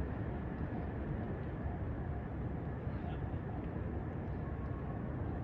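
Steady low rumbling outdoor urban background noise, with no distinct event standing out.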